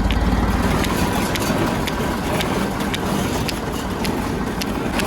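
Tractor diesel engine running under load while a Welger AP51 baler works behind it, with a short sharp knock about twice a second from the baler's working strokes.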